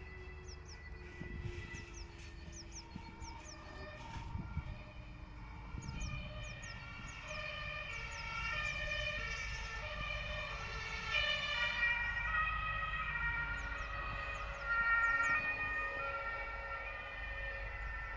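Several German civil-defence sirens, E57 motor sirens and electronic SES sirens, sounding the fire alarm at once. Their overlapping tones rise and fall and grow louder past the middle.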